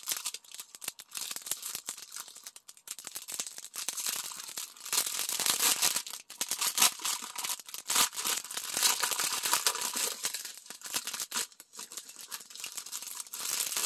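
Small clear plastic packets of diamond painting drills being handled: crinkling plastic with the tiny drills rattling inside, in irregular rustles and clicks.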